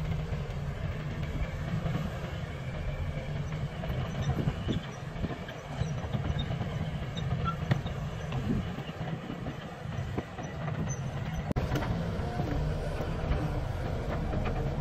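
Diesel engines of Caterpillar 320 hydraulic excavators running under load while digging mud, a steady deep rumble with scattered clanks. There is a brief gap and then a sharp knock about eleven and a half seconds in.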